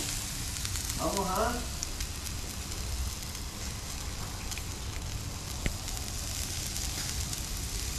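Lard-basted doves and gizzard skewers sizzling on a charcoal grill grate, with a steady hiss and fine crackling and popping over the glowing coals. A sharp pop comes about two-thirds of the way through.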